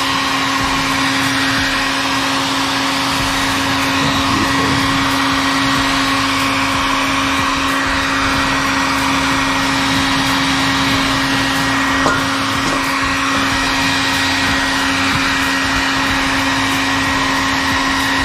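Handheld hair dryer running steadily: a constant motor hum under a rush of blown air, heating a freshly applied motorcycle decal to press out air bubbles.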